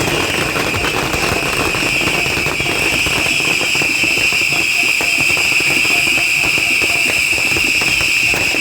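A barrage of fengpao (beehive) rockets: dense, rapid crackling under a steady high-pitched whistle that holds throughout.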